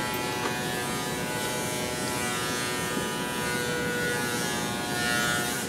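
Power machine in a workshop running continuously with a steady buzzing whine made of several steady tones over a hiss. It cuts off abruptly at the very end.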